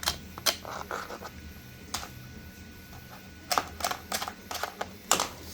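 Irregular sharp plastic clicks and a short scrape from a 3D-printed plastic part being worked by hand as leftover support material is trimmed off. There is a bunch of quick clicks a little past halfway, and the loudest single click comes near the end.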